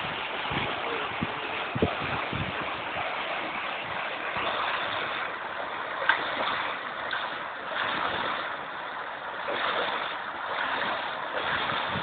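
Fast-flowing river water rushing and churning in a steady splashing rush, with a few low thumps in the first two seconds.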